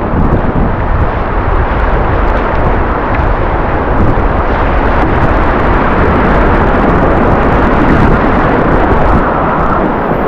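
Loud, steady rush of fast river water through rapids, with a strong low rumble.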